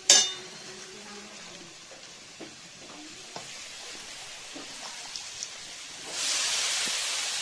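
Wet shredded cabbage dropped into hot oil and spice paste in a metal karahi sets off a loud, sudden sizzle about six seconds in. Before that the paste fries with a faint sizzle and a few light taps, after one sharp clank at the very start.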